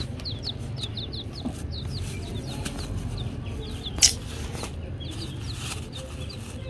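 Young chicks peeping: a quick run of short, high, falling peeps, several a second. A single sharp knock comes about four seconds in.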